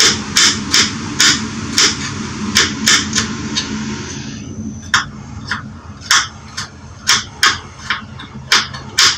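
A kitchen knife chopping beetroot finely on a cutting board: sharp, regular knocks about two a second. A steady background hum fades out about four and a half seconds in.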